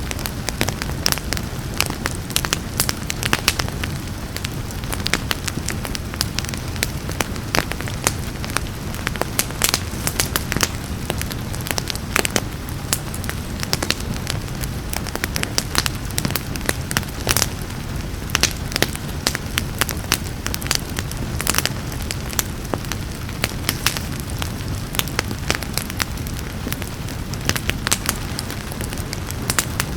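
Wood fire crackling in a fireplace, with frequent irregular pops and snaps over a steady low rumble of the flames, mixed with the steady hiss of falling rain.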